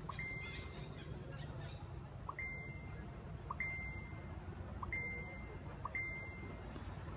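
A high, thin beeping note repeated five times at uneven intervals of about one to two seconds. Each note is a short flat tone with a brief lower click just before it, over a low steady rumble of outdoor background noise.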